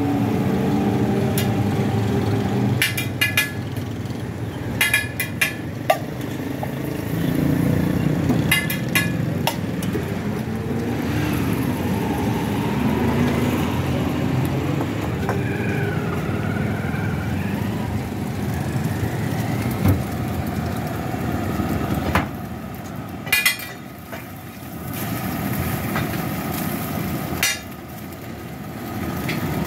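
Steady street noise of passing traffic. Every few seconds it is broken by a short cluster of ringing clatters from a steel spatula striking and scraping the flat steel griddle.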